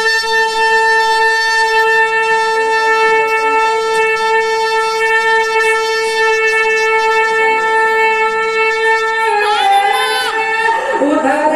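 A man singing a devotional kalam holds one long, steady high note for about nine seconds, then breaks into quick ornamented turns of melody near the end.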